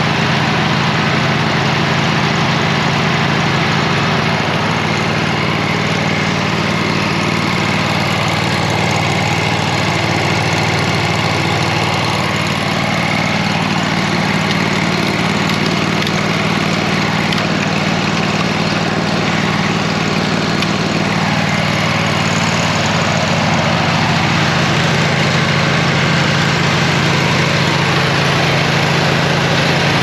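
Engine idling steadily, left running to warm up.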